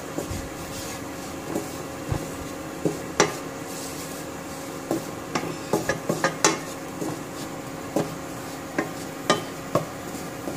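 Wooden spoon stirring and scraping flour roasting in ghee in a nonstick pan, the first stage of a white sauce. Irregular knocks of the spoon against the pan sound over a steady hum.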